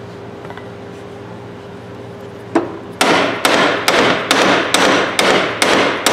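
One sharp knock, then from about three seconds in a steady run of sharp hammer knocks, about two a second, each with a short ring. It is a hammer tapping on the breaker bar's swivel joint, trying to drive its pin through.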